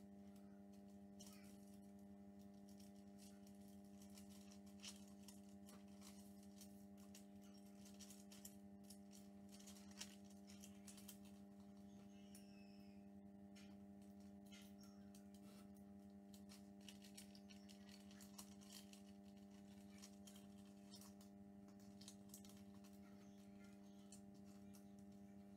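Near silence: a faint steady hum, with faint rustling and soft ticks of thin tissue paper being folded and creased by hand.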